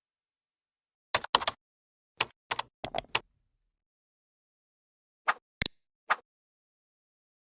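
About a dozen short, sharp clicks in irregular clusters, a few quick ones together, then a pause, with dead silence between them.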